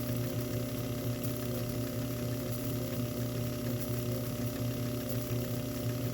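Small hobby lathe running steadily with a steady hum, an M4 tap in the chuck hobbing the teeth of a 3D printer extruder gear, with faint ticks over it.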